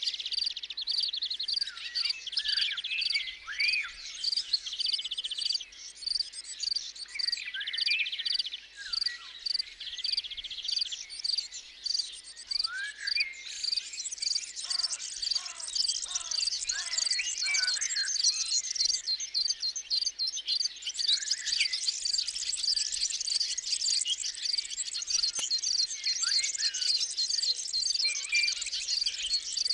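A chorus of birds singing and calling over steady, evenly repeated insect chirping. About halfway through comes a short run of five lower, falling calls.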